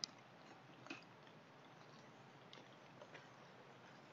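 Sparse big raindrops landing as faint, scattered ticks over a quiet, even hiss, the sharpest two near the start and about a second in.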